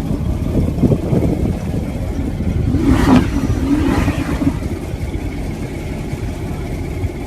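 Car engine and exhaust revving over a steady low rumble, with a loud burst about three seconds in and a second, weaker one about a second later.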